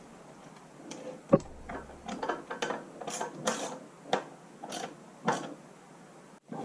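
Ratchet wrench clicking in short, uneven strokes as bolts on a tractor engine's rear main crankshaft seal housing are snugged up gently, without full leverage.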